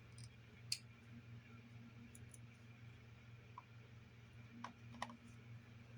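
A few small clicks of a screwdriver working the tiny screws that hold in a laptop battery, one sharper click a little under a second in and fainter ones later, over near silence with a low steady hum.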